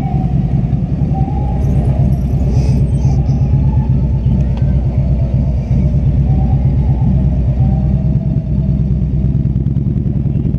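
Touring motorcycle engine rumbling steadily at low speed in slow stop-and-go traffic, heard from the rider's seat behind the fairing.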